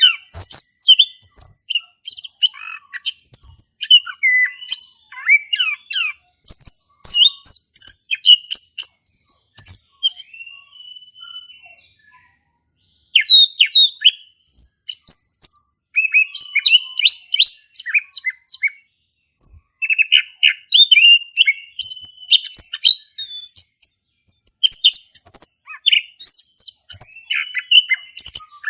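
Male chestnut-capped thrush (anis kembang) singing a fast, varied song of high chirps, sweeps and trills. The song thins out and breaks off for a second or two about halfway through, then carries on just as busily.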